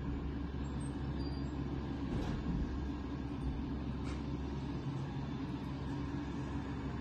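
Cessna 152's four-cylinder Lycoming O-235 engine idling steadily, heard from inside the cockpit.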